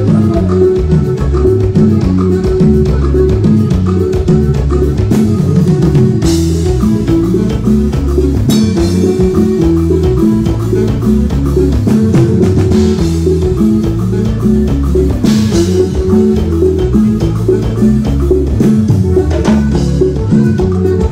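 Loud live Latin dance-band music, with a heavy bass line and a drum kit keeping a steady dance beat, and several cymbal-like splashes along the way.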